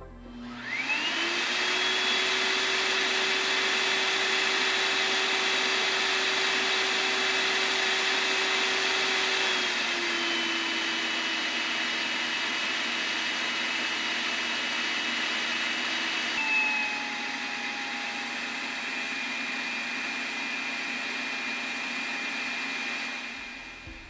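XLERATOR electric hand dryer running: its motor spins up with a rising whine into a steady rush of air with a high whine on the High setting. The pitch and loudness step down about ten seconds in as it goes to Medium, and again at about sixteen seconds as it goes to Low, before the sound fades out near the end.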